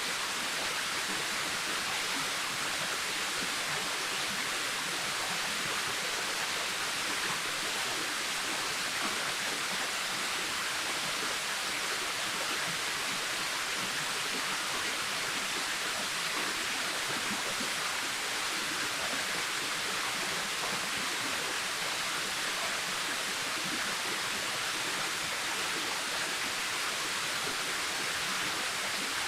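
Waterfall, water falling and splashing in a steady, even rush with no breaks.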